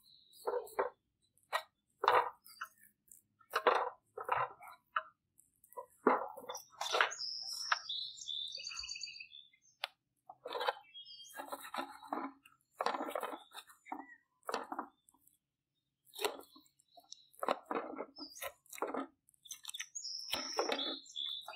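Hands rubbing and squeezing a sauce paste into the skin of a raw goose: irregular wet squelches and slaps, with a bird chirping briefly around the middle and again near the end.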